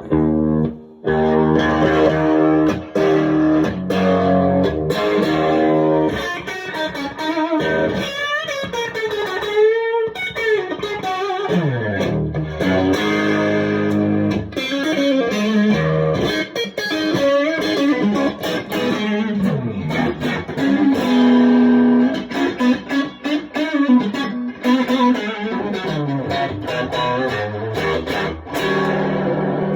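Electric guitar played through a 1978 Marshall 4140 Club and Country all-valve combo fitted with new Celestion Creamback speakers, on its high input channel with the master volume up for a more distorted tone. Chords and single-note lines, with bent, wavering notes about eight to twelve seconds in.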